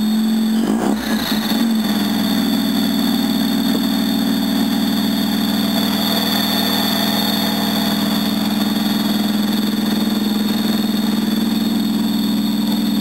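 NSU Ro80's twin-rotor Wankel engine running warm, with a loud, steady strange noise, a low hum topped by a high whine, that comes on only once the engine is up to temperature; its cause is unknown to the owner. Heard from inside the car.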